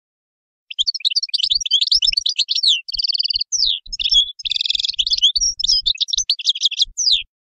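European goldfinch singing: a fast, unbroken run of high twittering notes with two short buzzy trills in the middle, starting under a second in and stopping shortly before the end.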